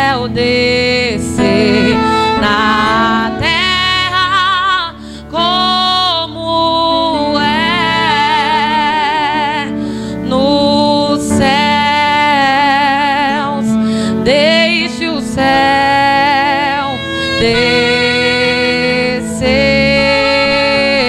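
A woman singing a slow worship song into a microphone over sustained instrumental accompaniment. She holds long notes with a wavering vibrato, with a short break about five seconds in.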